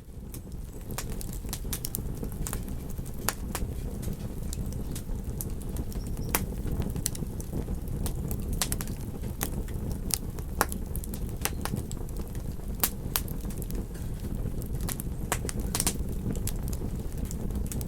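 Campfire crackling, with frequent sharp, irregular pops from the burning wood over a steady low rumble.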